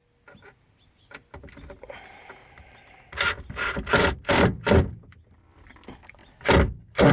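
A series of short, harsh scraping strokes: a cluster of about five a little past halfway, then two more near the end.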